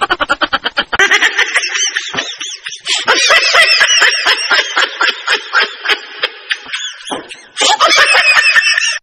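Edited-in comedy sound effect: a loud, rapid run of high-pitched chirping pulses, several a second, with a short break about seven seconds in, cutting off suddenly at the end.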